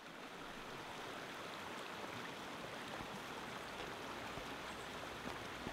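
Shallow rocky stream running and splashing over boulders, a steady rush of water that fades in at the start.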